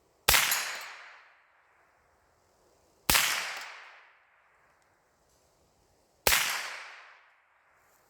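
Three single rifle shots from an AR-15 firing .22 LR through a CMMG conversion kit, slow deliberate fire about three seconds apart, each shot echoing and trailing off over about a second and a half.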